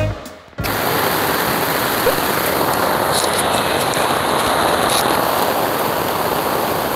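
Steady heavy rain, starting about half a second in, with water streaming off the edge of a tent tarp onto gravel.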